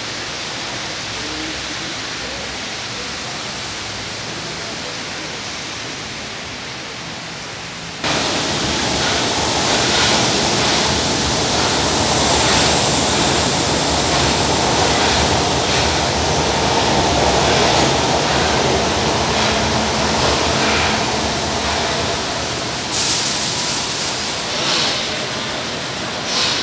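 Steady hiss of rain and distant rail noise for about eight seconds. Then, suddenly louder, a São Paulo Metro train runs along the platform: a continuous rush of wheel and motor noise with clunks from the rails. It eases toward a stop near the end, with brief high-pitched ticking.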